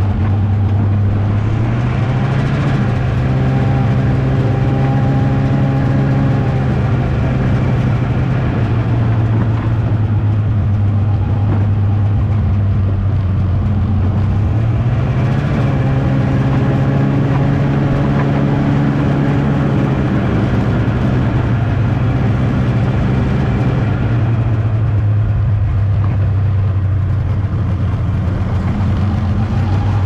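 Snowmobile engine running while being ridden. Its pitch rises as the throttle opens about two seconds in, eases off, rises again about halfway through, and drops back near the end.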